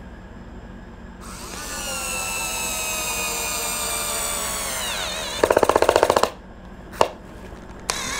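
INGCO lithium-ion cordless screwdriver's small motor whining as it drives a 1.25-inch screw into a wooden block, its pitch slowly sinking as the load grows. About five seconds in it breaks into a rapid clatter of about a dozen loud clicks lasting about a second as the screw seats, followed by a sharp click and a brief second burst of whine near the end.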